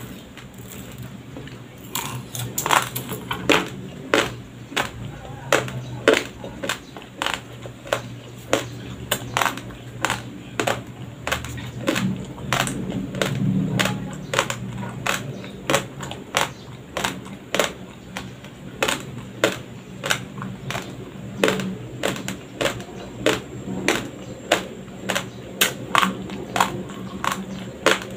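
Raw, uncooked white rice being chewed close to the microphone: a steady run of sharp crunches, about two a second.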